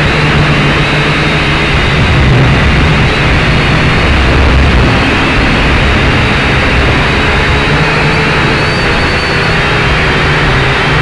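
A small drone's electric motors and propellers running steadily in flight, heard close up through its onboard camera: a loud, even whir with a low hum under it.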